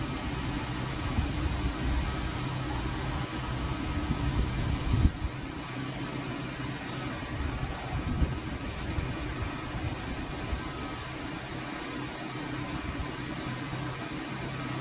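A motor running steadily with a low hum, with a few brief knocks, the loudest about five seconds in.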